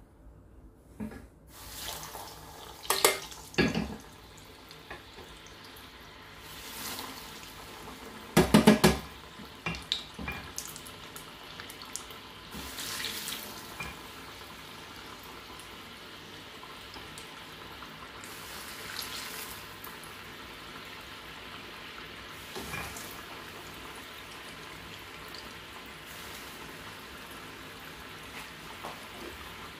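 Breaded yam croquettes deep-frying in a small saucepan of hot oil, a steady bubbling sizzle. Several sharp clacks of metal tongs on the pan come in the first ten seconds, the loudest about three and eight and a half seconds in, as the croquettes are dropped in.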